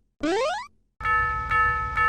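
A short cartoon sound effect sweeping upward in pitch, then about a second in a Japanese railroad crossing alarm starts ringing: a steady bell tone re-struck about twice a second.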